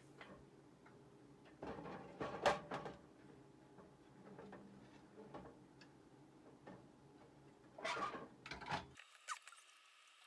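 Scattered clicks and knocks of the projector's parts being handled and taken apart, loudest about two and a half seconds in and again near the end, then a faint steady hiss.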